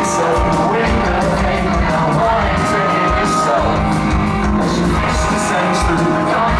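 Live rock band playing loudly, with electric guitar.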